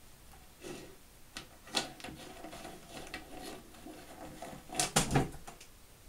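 Handling noises as a hand picks up a plastic Rubik's Cube from a table: a series of irregular clicks and knocks, with a louder pair of thumps near the end.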